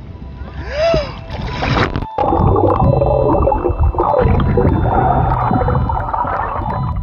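Water gurgling and bubbling heard through the microphone of an Insta360 One X2 camera dipped under the water, with a couple of brief cutouts in the sound.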